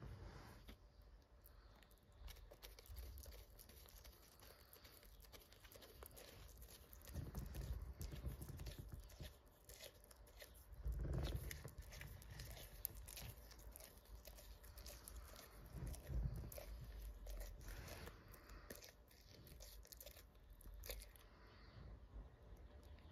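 Green iguana biting off, tearing and chewing a leafy green held out by hand: a faint run of small crisp crunches and tearing sounds. A few duller thumps come about a third of the way in, around the middle, and again about two-thirds through.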